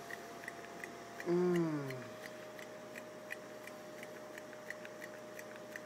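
Faint, even ticking, about two or three ticks a second, over a thin steady tone. About a second in, a short hum from a voice falls in pitch.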